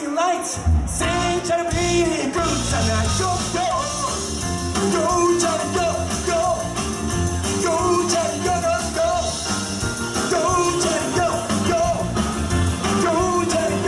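Live rock band playing, with drums, bass guitar and electric guitar, and a man singing the lead vocal over it.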